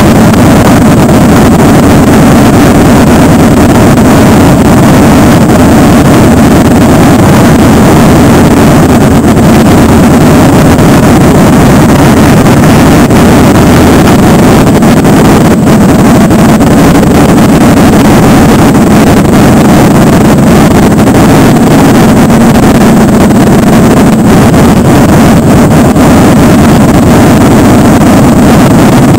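Motorcycle engine running steadily at parade pace, picked up by a camera mounted on the bike, with other motorcycles in the column around it and wind rushing over the microphone. The sound is very loud and unbroken.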